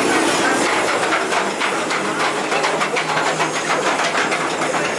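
Mine-train ride's ore cars rolling along the track, a steady noisy clatter with a run of fast rattling through the middle.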